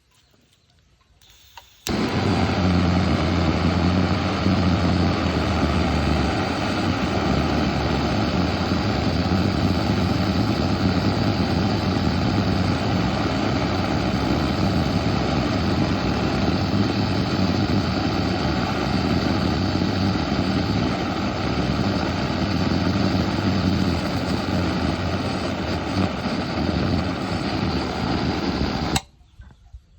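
Pressurised kerosene burner of the Primus type burning with a loud, steady rush and a low rumble. It starts abruptly about two seconds in and cuts off suddenly near the end.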